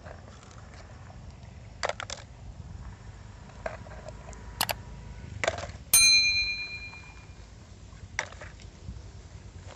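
Muddy toy vehicles handled and dropped into a plastic basket: scattered clacks and knocks, and one loud clink about six seconds in that rings on briefly.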